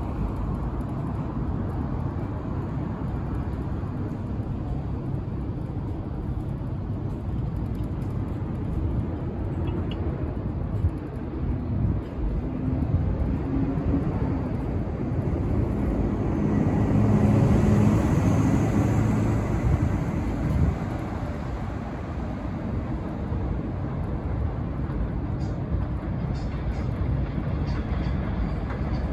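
Outdoor city ambience from an elevated subway platform: steady street traffic below, with a louder vehicle swelling past about two-thirds of the way in.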